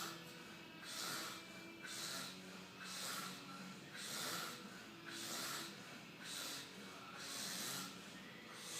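A man snoring, with a noisy snorting breath about once a second in a steady rhythm.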